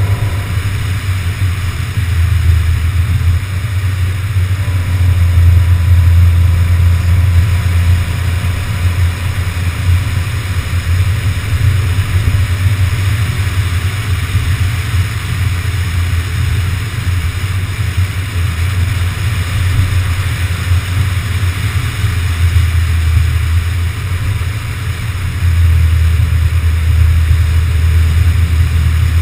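Car driving at road speed, heard through a camera mounted on the outside of the car: a steady low rumble of wind and road noise, dipping briefly a few seconds before the end.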